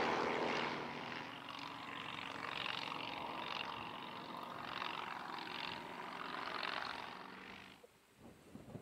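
Light propeller aircraft engine running and fading as the plane moves away. The sound cuts off suddenly near the end, leaving a few faint clicks.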